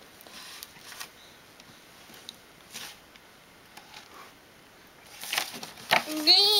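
A toddler handling a cardboard board book: soft page rustles and small taps, then a louder rustle about five seconds in. Near the end the toddler starts a rising, sing-song vocal.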